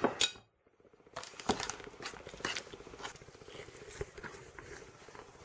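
A fork scraping and clicking against a stainless steel mixing bowl as flour and lard are stirred together for pastry: soft, scattered clicks and crumbly scraping, with a short break in the sound about half a second in.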